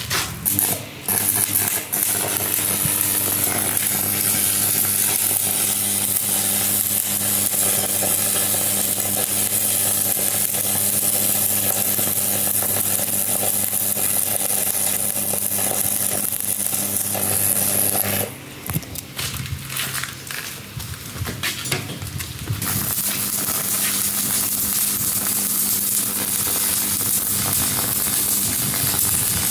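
Manual arc welding with electrodes on a preheated cast-iron part: the arc runs steadily over an even electrical hum. The arc breaks off for about four seconds roughly two-thirds of the way through, then is struck again.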